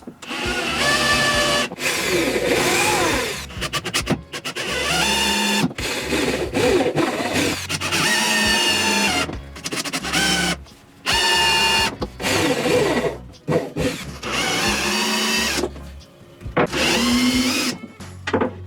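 A power drill running in about nine short bursts of a second or two each, its whine rising in pitch as it spins up each time, over background music.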